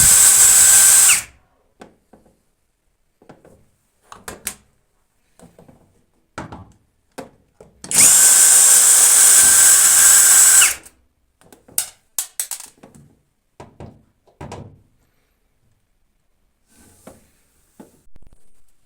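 Power drill running in two bursts, the first ending about a second in and the second lasting about three seconds from the middle, each with a steady whine that winds up and down, with faint clicks and knocks of handling between.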